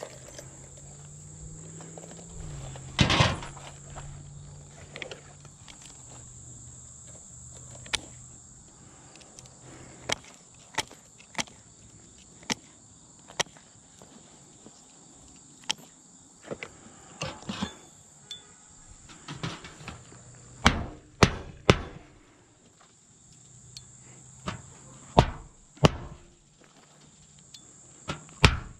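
Scattered sharp knocks and scuffs of a roofer moving on an asphalt-shingle roof and handling metal tools, the loudest knock about 3 s in and a run of taps in the last third as a roofing hatchet works at the metal roof flashing. A steady high insect trill runs underneath, with a low hum during the first half.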